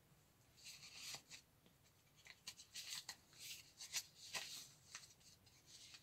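Stained paper pages of a handmade journal being turned one after another by hand: faint, irregular rustles and flicks of paper.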